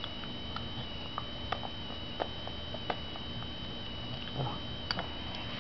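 Small wet clicks and lip smacks, scattered about once a second, from a baby eating mashed banana off a spoon, over a steady high-pitched whine.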